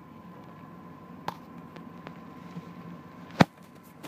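1994 Chevy S10's 4.3-litre V6 idling as a low steady hum, with a thin steady tone above it. A small sharp click comes about a second in, and a loud sharp knock near the end.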